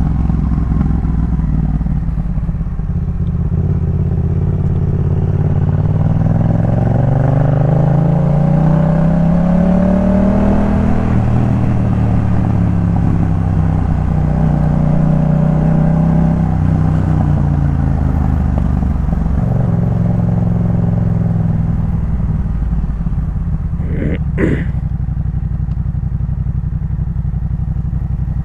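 Yamaha MT-07's 270° parallel-twin engine through a Jeskap K4 full aftermarket exhaust, under way: the note climbs in revs, holds, drops back about two-thirds of the way through, then runs at a lower steady pitch. A couple of brief sharp clicks come near the end.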